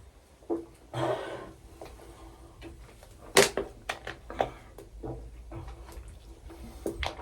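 A heavy breath about a second in, then a run of light knocks and clicks from handling things, the sharpest about three and a half seconds in.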